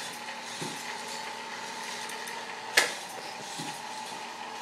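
K'nex roller coaster's chain-lift motor running with a steady whir. One sharp click a little past halfway.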